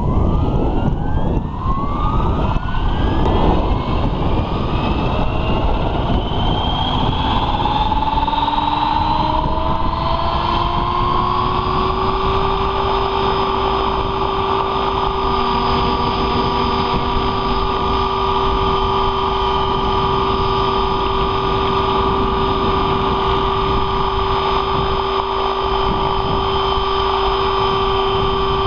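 Radio-controlled scale Bell 222 helicopter on Align T-Rex 600 mechanics spooling up on the ground: its drive and rotor whine rises in pitch over about twelve seconds, then holds steady at speed. Wind rumbles on the microphone underneath.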